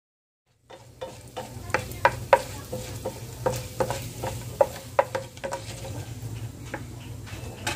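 Metal utensil stirring in a pot, with irregular sharp ringing clinks about twice a second over a faint frying hiss and a steady low hum. It cuts in abruptly about half a second in.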